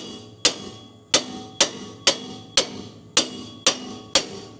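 Hammer blows on steel, about two a second, each with a short metallic ring, driving stuck parts of a truck's rear suspension into place.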